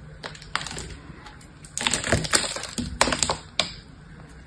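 Bar of soap cut into small cubes, crumbling and cracking under the fingers as the cubes are broken off: a few sharp snaps, then dense clusters of crisp crackling about two and three seconds in.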